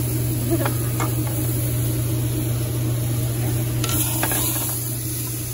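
Steady hiss over a constant low hum, with a few faint clicks.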